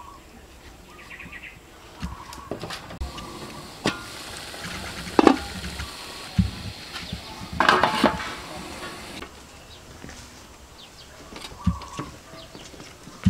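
Knocks and metallic clatter of an aluminium steamer pot and its perforated tray being handled, with a louder clatter about five seconds in and again about eight seconds in. A hiss of steam from the boiling water runs through the middle stretch.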